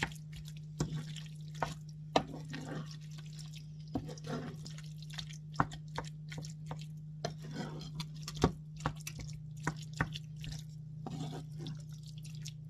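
Wooden spatula stirring a thick, wet tofu scramble in a frying pan: irregular wet clicks and taps of the spatula against the pan and food, over a steady low hum.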